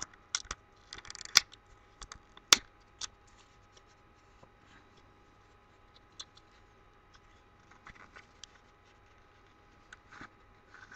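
Fingers prying at a small cardboard box of mini trading cards that is hard to open: scattered sharp clicks, scrapes and crinkles of card stock. It is loudest in the first three seconds, then fainter, with a few more clicks near the end.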